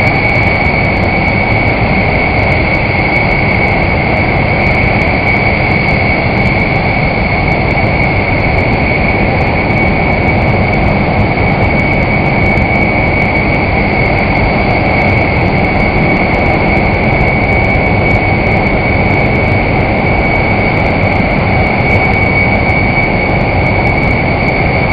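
Jet engine noise running steadily, with a constant high whine over it and no rise or fall.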